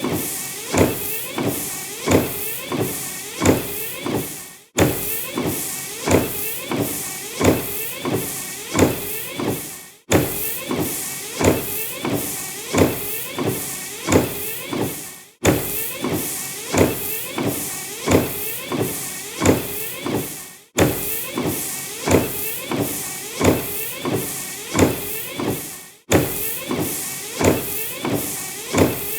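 Car windshield wipers sweeping back and forth across the glass, a short rubbing swipe with a pitched edge on each stroke, about one stroke every 0.8 s. The sound cuts off sharply and starts again about every five seconds.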